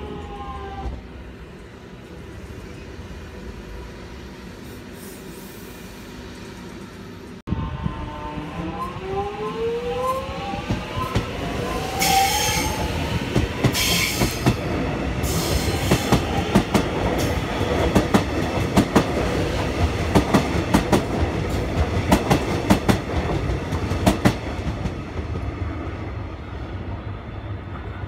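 Train at a station: after an abrupt cut, its engine note rises as it picks up speed. Then a fast, dense run of clicks follows as the wheels pass over rail joints, tailing off near the end.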